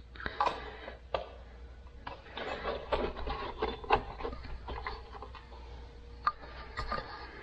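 Irregular clicks, knocks and rubbing from metal parts of an open GM 7.5 rear differential being handled by hand.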